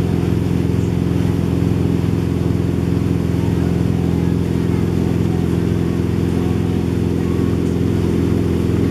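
A wake boat's engine running at a steady speed, a constant drone that does not change pitch, with the hiss of the churning wake beneath it.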